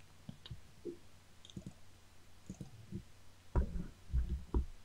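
Faint, scattered clicks of a computer mouse and keyboard, with a quick run of louder clicks about three and a half seconds in, as a value is typed into a field.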